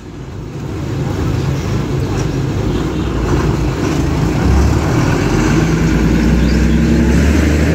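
Engine of an old Isuzu school bus as the bus pulls away from a stop and drives past. The engine grows louder over the first second or so, then settles into a steady low drone that swells again about halfway through as the bus goes by.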